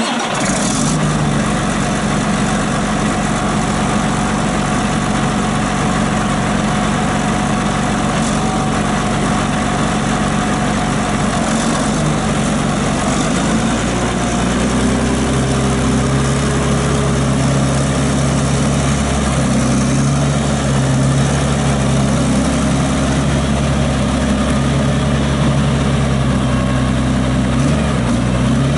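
John Deere 8420T track tractor's six-cylinder diesel engine running steadily. Its note changes about halfway through.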